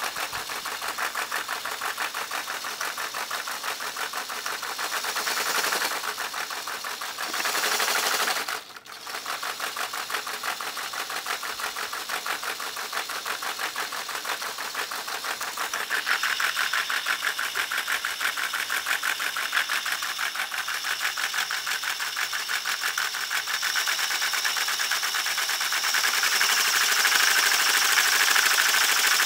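Motor-driven LEGO Technic V-twin model engine running: a small electric motor whirring while the plastic pistons and crank clatter in a rapid, even rhythm. The running falters briefly about nine seconds in and is louder in the second half.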